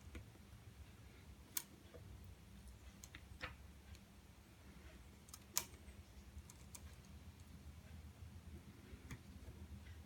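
Very quiet, with a handful of small sharp clicks and ticks, the loudest about one and a half and five and a half seconds in: small tools and phone parts being handled during reassembly of an iPhone.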